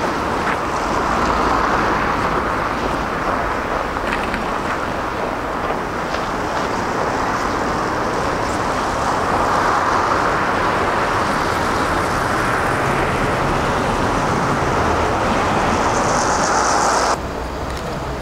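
MTV-82 vintage tram running on its rails, a steady rolling noise of wheels on track and motor that swells as it passes close, about ten seconds in. It cuts off suddenly near the end, leaving quieter street noise.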